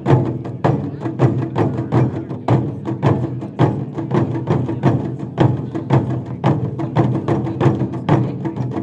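Drummers playing a rhythmic percussion piece: a fast, even run of sharp drum strikes, several a second, over held low tones.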